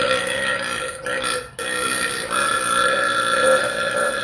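Two long burps from a woman. The first breaks off about a second and a half in, and the second is drawn out at a steady pitch.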